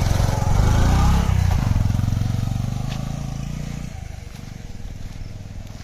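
Motorcycle engine running with a rapid low throb that grows fainter and dies away about four seconds in.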